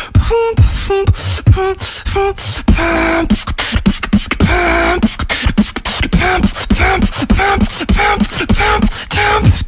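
Human beatboxing: a steady rhythm of vocal kick and click strokes woven with short pitched, warbling "alien sound" tones and a vocal bass line.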